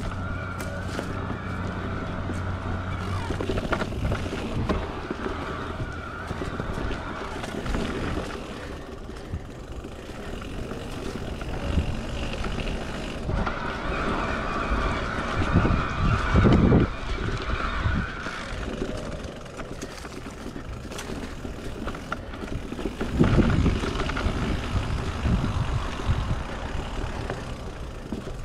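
Electric mountain bike being ridden along a dirt trail: the pedal-assist motor's steady whine comes and goes over tyre noise and frame rattle, with louder rumbling jolts about halfway through and again near the end.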